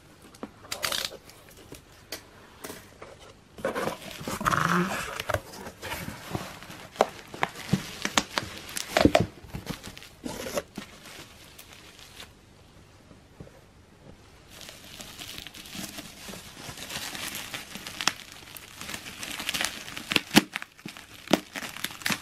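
Bubble wrap and packing tape crinkling and tearing as a parcel is unwrapped by hand. The crisp crackles and sharp clicks come irregularly, with a quieter pause about halfway through.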